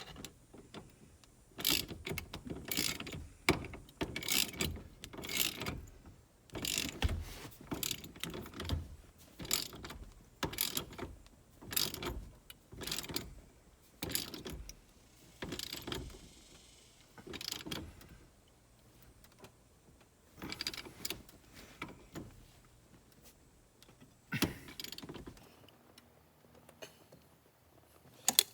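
Irregular series of short mechanical clicks and clatters, roughly one or two a second, with the last loud one about 24 seconds in.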